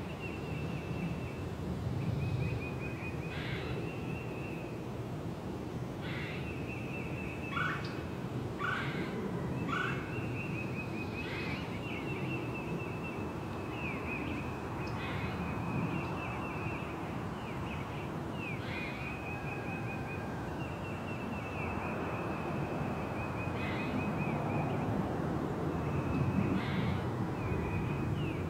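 Wild birds in a spring forest: a high, fast trill repeated every few seconds, with short sharp calls in between and two short lower calls about eight to ten seconds in, over a steady low background hum of outdoor air.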